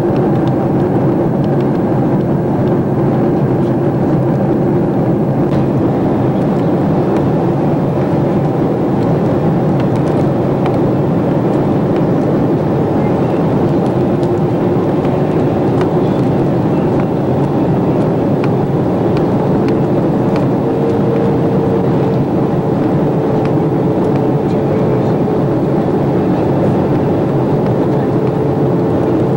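Airliner cabin noise in flight: the steady rush of engines and airflow heard from inside the cabin, with a low hum whose pitch rises a little about two-thirds of the way through.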